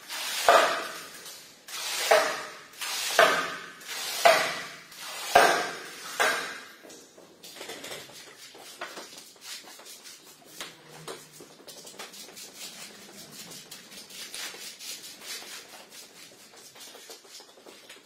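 Squeegee dragged through a water-soaked shag carpet, pushing dirty water out onto the tiles: about six swishing strokes roughly a second apart, each building up and cutting off. After that, a fainter crackling patter of water for the rest of the time.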